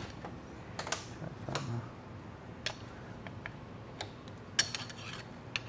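Irregular light metal clicks and short scrapes from a steel transmission clutch drum as a wavy snap ring is pried out of it with a pick, the sharpest click a little over four and a half seconds in.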